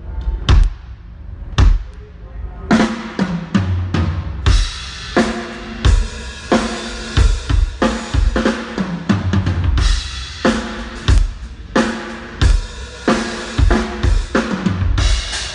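Drum kit: a few separate hits, then from about three seconds in a steady beat of bass drum and snare with cymbals washing over it.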